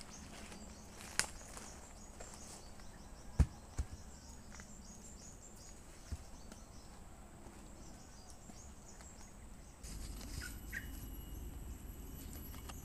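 Outdoor ambience of birds or insects chirping in quick, faint, high repeated notes, broken by a few knocks, with one sharp thud about three and a half seconds in. Near the end the background changes to steady, high insect tones.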